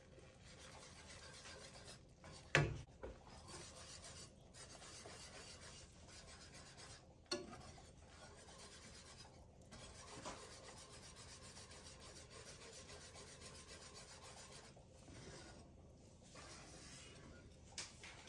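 Wire whisk stirring shredded cheese into a thick sauce in an enamelled cast-iron pan: a faint, steady scraping and swishing, with a few light knocks, the loudest a few seconds in and another about seven seconds in.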